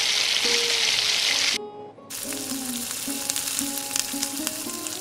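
Onion-tomato masala frying in oil in an aluminium pressure cooker, sizzling loudly. About a second and a half in the sizzle drops off abruptly, then carries on more quietly with scattered clicks of a steel spatula against the pot.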